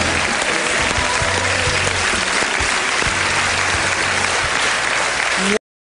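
Audience applauding over music, the clapping dense and loud; it cuts off suddenly near the end.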